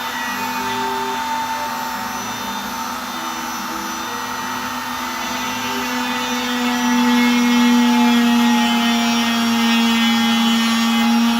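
Home-built CNC router running a test cut: the spindle motor gives a steady whine with a high hiss, getting louder about six or seven seconds in.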